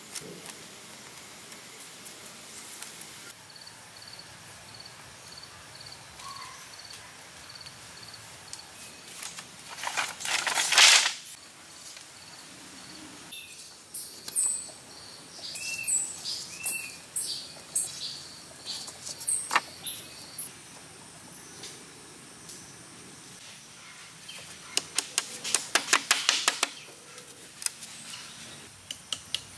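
Hand work on split bamboo and sticks: a loud rasping burst about ten seconds in, scattered clicks, and a quick run of sharp taps near the end, over a background of chirping birds and insects.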